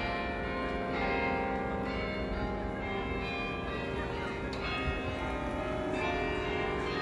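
Church bells of the Cathedral of St. Michael and St. Gudula pealing: several bells struck one after another about once a second, their tones overlapping and ringing on, over a low background rumble.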